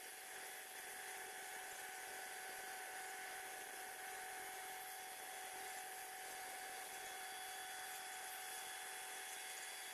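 Faint, steady mechanical whine over a hiss from a girder transport-and-erection machine as it creeps forward carrying a concrete box girder, its drive and hydraulic pumps running. There are several steady whine tones and no knocks or breaks.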